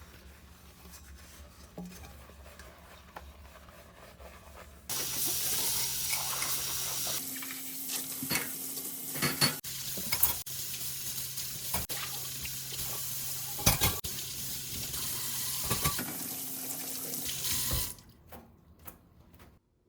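Kitchen sink tap turned on about five seconds in, water running steadily into the sink, with a few knocks as things are handled under the stream; the water shuts off near the end.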